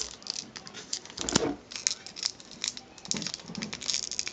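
Foil wrapper of a Pokémon card booster pack crinkling and crackling irregularly as fingers work open its top seam, with a muffled knock about a second and a half in.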